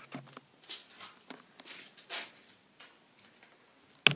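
Soft rustles and brushing noises from a handheld camera being handled, then one sharp knock about four seconds in as it is swung about.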